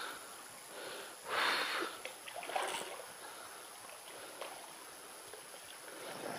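Shallow stream water splashing, with one louder splash about a second and a half in followed by a few small clicks.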